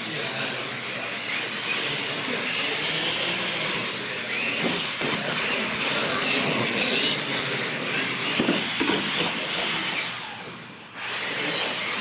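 Electric R/C monster trucks racing, their motors and gears whining, the pitch rising and falling with the throttle over a steady hiss of noise. The sound dips briefly near the end.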